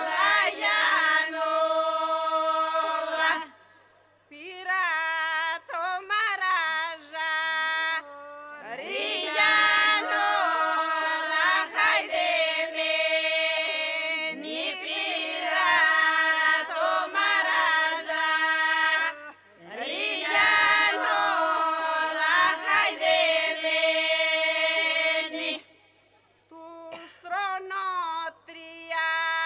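Unaccompanied women's group singing Epirote polyphonic song: an ornamented lead line over a steady held drone from the group. The phrases break off with short pauses, about four seconds in and near the end.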